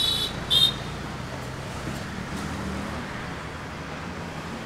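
A car's engine running low and steady as it drives slowly in through a gateway, with a short, shrill, high-pitched tone about half a second in.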